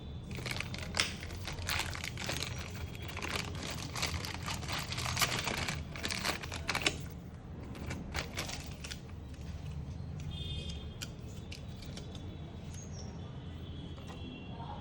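Rustling and clicking handling noises for the first several seconds, over a steady low hum.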